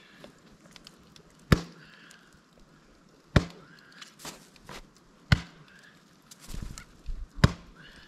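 Four sharp knocks about two seconds apart, each with a short low ring, as a Canada jay pecks at a metal camp pot.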